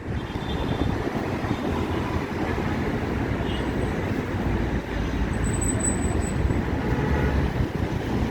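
Steady low outdoor rumble of ambient noise, with a faint, thin high squeak about two-thirds of the way through.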